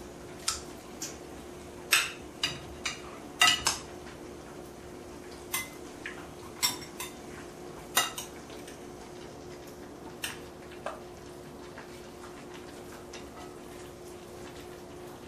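Metal spoon clinking against a glass mixing bowl of marinated pork as the shallots are scooped out: sharp, irregular clinks, several close together in the first four seconds, then fewer, stopping after about eleven seconds.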